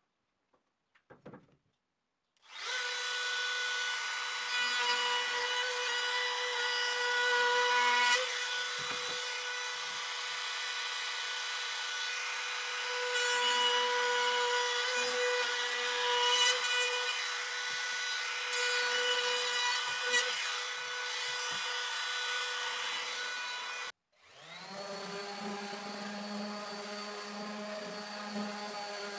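An electric power tool working wood, running with a steady high whine and small dips and surges as it cuts. About 24 seconds in it stops abruptly, and a second, lower-pitched power tool spins up and keeps running.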